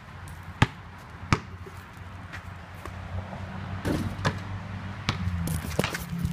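Basketball bouncing on a concrete driveway: two sharp bounces in the first second and a half, then fainter, irregular knocks. A steady low hum comes in about halfway through.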